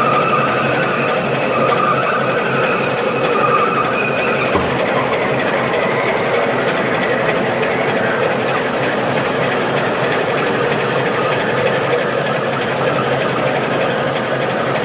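Heavy lathe turning a grade 5 titanium forging while a trepanning tool bores through it with coolant flowing: a loud, steady machining noise, with a faint whine over the first four seconds or so.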